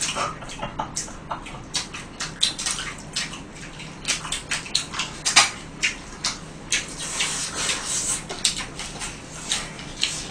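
Eating sounds of fried chicken being bitten and chewed: a quick, irregular run of short crackles and wet smacks, several a second.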